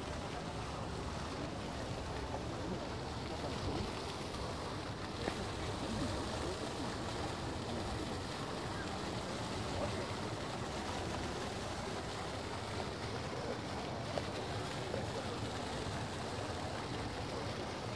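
Steady wash of fountain water splashing in the pools around the pyramid, with faint distant voices underneath.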